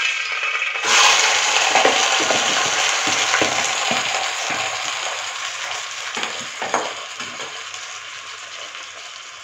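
Yogurt-marinated chicken sizzling as it hits hot oil in a kadai, the hiss strongest about a second in and slowly fading. A spatula knocks and scrapes against the bowl and pan several times.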